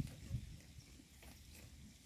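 Cows grazing, tearing and munching grass, with two dull thumps in the first half-second and faint scattered crunching clicks.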